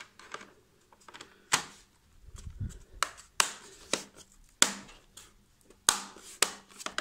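Plastic bottom cover of an Asus ROG laptop being pressed back into place, its clips snapping shut in a series of sharp clicks, about eight in all.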